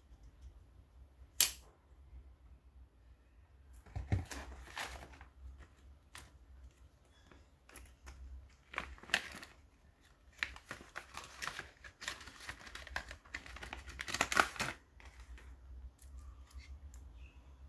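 A single sharp click, then a plastic packaging bag crinkling and rustling in irregular bursts as a knife in a Kydex sheath is pulled out of it.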